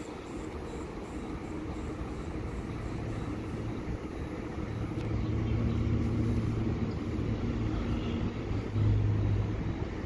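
Low steady hum and rumble from a standing CPTM electric train's on-board equipment. The hum swells about halfway through and is loudest near the end.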